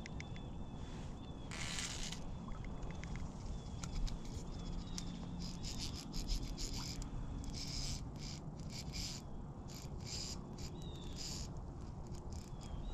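Fly reel's clicker ratcheting in quick bursts as a hooked trout is played on a light fly rod, the bursts coming thickest in the second half. A low rush of stream and wind noise runs underneath, with a few short bird chirps.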